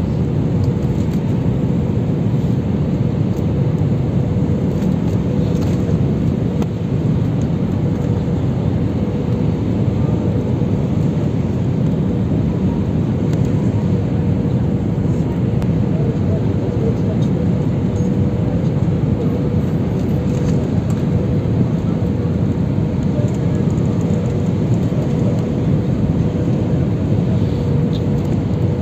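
Jet airliner cabin noise on the approach to landing: a steady engine and airflow rumble with a faint steady hum running through it.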